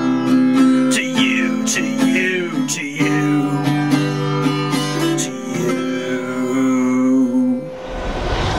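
Acoustic guitar music with regularly plucked notes and chords. Near the end it stops and a shimmering, chime-like wash of sound swells in.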